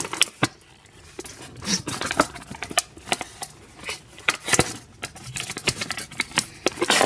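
Packaging being handled: irregular clicks, taps and crinkles as a tight-fitting puzzle is worked out of its box.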